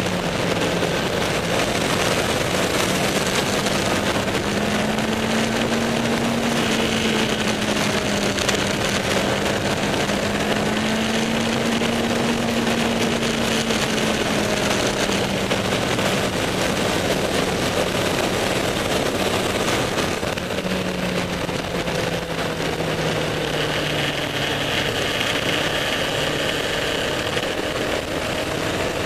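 Motorcycle engine running at cruising speed over a steady rush of wind noise. The engine note rises and falls gently with the throttle, then eases off and slides lower about twenty seconds in.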